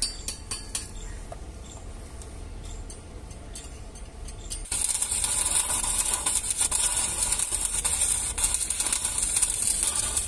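Arc welding a tack on a pipe joint: a loud, dense crackling hiss that strikes up about halfway in and runs on steadily. Before it, a few light clicks.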